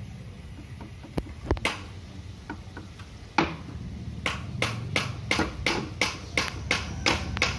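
Hammer blows on a wooden frame: a few scattered taps early, then from about three and a half seconds in a steady run of hammering, about three blows a second.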